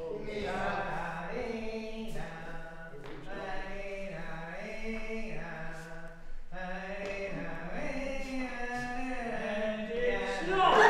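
Voices singing a slow tune in long held notes.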